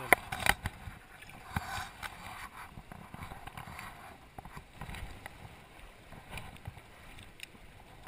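Shallow river water splashing and sloshing around legs wading in it, with a few sharp clicks and splashes in the first second.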